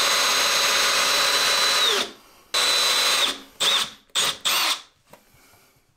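Cordless drill spinning a quarter-inch diamond core bit into glazed ceramic wall tile. It makes a steady two-second run, then a shorter run, then three quick bursts, with the whine dropping at the end of each. It stops about a second before the end.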